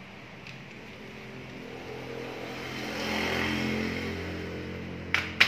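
A motor vehicle engine hum that swells to a peak in the middle and then fades, as of a vehicle passing by. Near the end come two sharp knocks as the copier's plastic developer unit is rapped to shake out the old developer powder.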